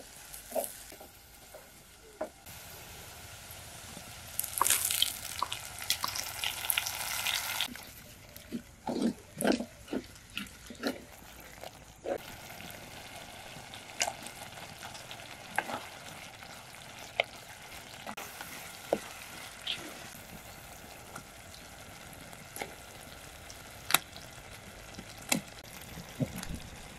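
Onion and masala sizzling in hot oil in a pot over a wood fire, stirred with a wooden spoon. The sizzle is loudest about five to eight seconds in, followed by a few knocks of the spoon against the pot and scattered sharp clicks.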